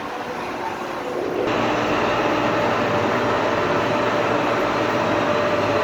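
Workshop machinery running steadily. About one and a half seconds in, another machine starts up and adds a louder, steady hum that holds for the rest of the time.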